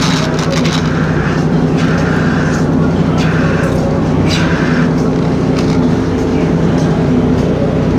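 Milking machine running: a steady mechanical hum from the vacuum system, with several short hisses of air drawn in as the teat cups are put on.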